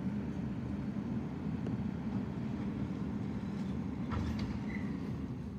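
Garbage truck engine running with a steady low rumble, easing off at the very end, with a faint knock about four seconds in.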